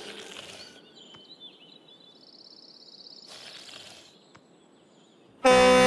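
Quiet outdoor ambience with faint bird chirps and a short trill, and two brief soft hissy swells. Loud music cuts in suddenly near the end.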